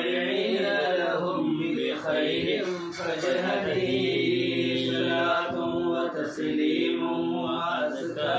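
Unaccompanied male chanting of Arabic devotional verses in a mawlid recitation, with long held notes.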